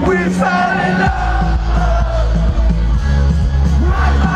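Live band music over a festival PA, heard from inside the crowd, with crowd voices singing and yelling along. The bass thins out briefly at the start and comes back in heavily about a second in.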